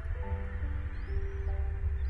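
Background music of sustained, overlapping held notes over a steady low rumble, with a faint high chirp about a second in.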